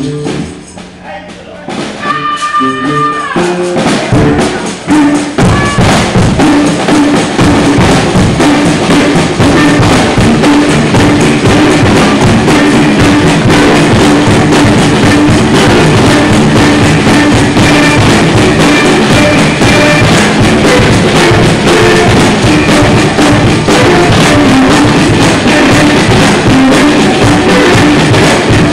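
Loud live church music with a drum kit keeping a fast, driving beat. It swells to full loudness about four seconds in and runs on steadily.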